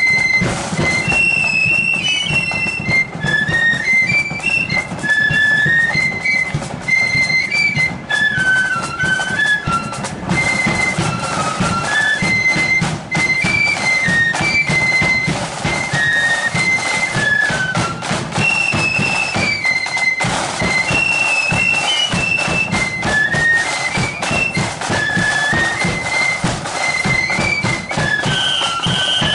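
Marching flute band playing a tune together on flutes over a steady drum beat. The melody repeats, and a high note is held just before the playing stops at the end.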